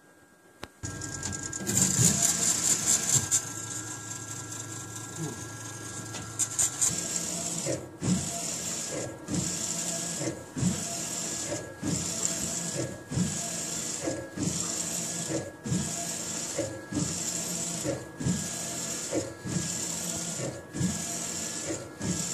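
AnaJet mPower direct-to-garment inkjet printer printing on a T-shirt. After a few seconds of louder whirring, the print-head carriage shuttles across the platen about once every 1.2 seconds, each pass a whirring hiss ending in a knock as it reverses.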